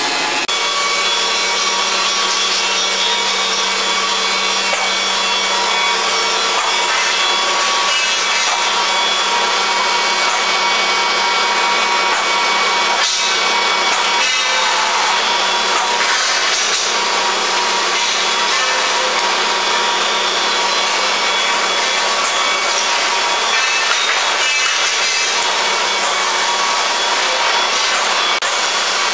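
Pipe-coating line machinery running steadily: an even hiss with several steady whines over it.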